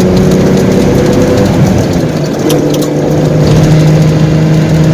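Motor vehicle engine running steadily with a constant low hum, its pitch shifting slightly about halfway through.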